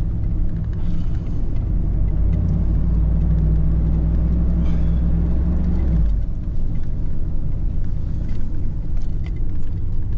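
A car driving: a steady low engine and road rumble that eases off about six seconds in, followed by scattered small clicks.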